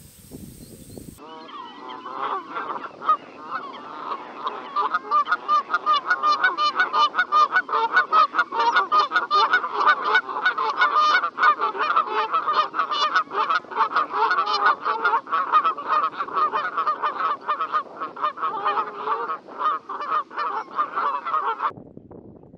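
A large flock of Canada geese honking together, many calls overlapping into a continuous din. It starts about a second in, grows denser over the next few seconds, and cuts off suddenly near the end.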